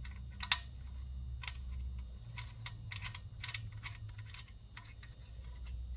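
Light clicks and taps of small metal air fittings being handled and set in place, with one sharper click about half a second in, over a steady low hum.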